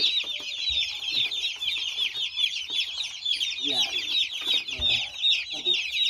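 A box of broiler chicks peeping constantly: a dense chorus of many short, high, downward-sliding chirps overlapping without a break.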